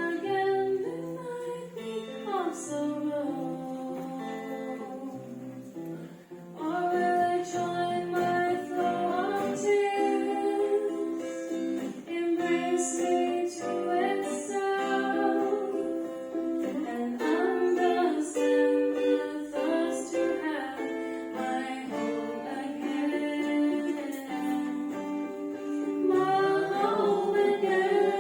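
A woman singing a song to acoustic guitar accompaniment; the singing gets fuller and louder about seven seconds in.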